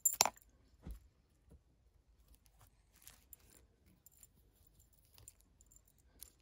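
18-karat gold rolo chain necklace with a heart pendant clinking as it is handled and dangled. There is a sharp metallic clink right at the start and a lighter one about a second in, then faint scattered jingles from the links.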